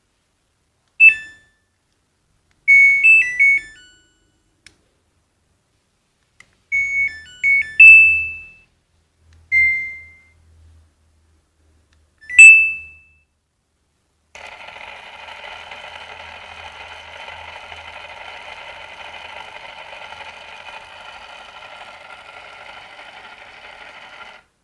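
Samsung washing machine control panel beeping: single and clustered electronic beeps at a few pitches, like button presses and a short power-on tune, a sign that the repaired control module has power. About fourteen seconds in, a steady hissing hum starts and runs for about ten seconds.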